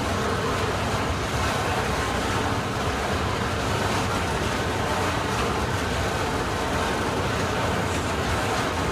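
Long freight train of flat wagons loaded with steel coils rolling past steadily: a continuous noise of wheels running on the rails.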